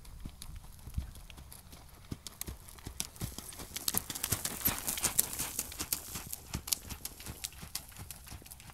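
Hoofbeats of a ridden horse moving on sand arena footing. They grow louder as the horse passes close, about halfway through, then fade as it moves away.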